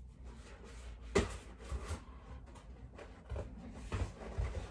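Packaging being handled and opened by hand: scattered knocks and rustles, the sharpest knock about a second in.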